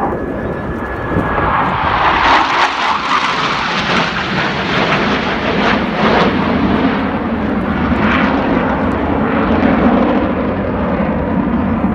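Jet engine noise from the Blue Angels' four F/A-18 Hornets flying in diamond formation as they climb into a vertical. It is loud, swells about a second in, and then settles into a steady lower rumble.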